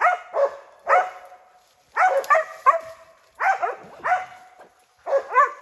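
West Siberian Laika hunting dogs barking repeatedly in short, uneven runs. This is the bay of dogs holding a black bear treed.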